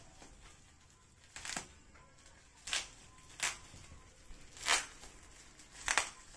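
Plastic packaging, bubble wrap and packing tape, being torn and peeled off a long parcel: five short rips or crinkles, roughly a second apart.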